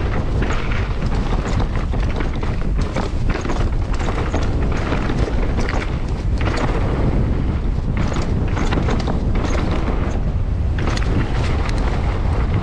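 Mountain bike descending a dirt and rock trail at speed: wind buffeting the microphone as a heavy rumble, with the tyres running over dirt and stones and frequent sharp clicks and knocks from the bike rattling over rough ground.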